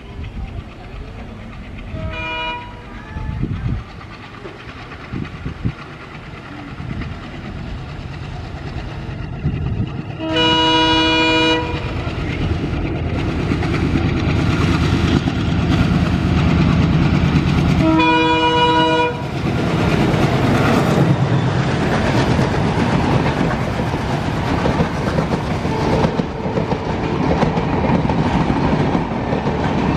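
Indian Railways WDG-3A diesel locomotive approaching and passing, its ALCO 16-cylinder engine running louder as it nears. Its multi-tone horn sounds three times: a short toot about two seconds in, then longer blasts at about ten and eighteen seconds. From about twenty seconds in, the LHB passenger coaches roll past with a steady rumble of wheels on rail.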